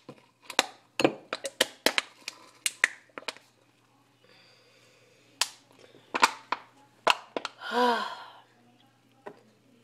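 Thin aluminium Coke can crackling and clicking as it is squeezed and worked upside down, frozen slushy Coke stuck inside it. Quick clicks come thick for the first three seconds or so, then a few single ones, with a short pitched sound that rises and falls about eight seconds in.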